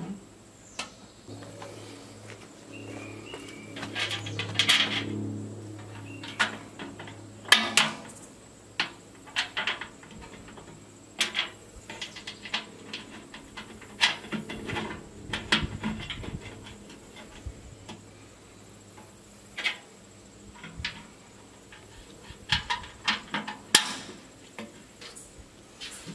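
Irregular metallic clinks, knocks and rattles of sheet-steel smoker parts and bolts being handled and fitted together during assembly, with a few louder knocks scattered through.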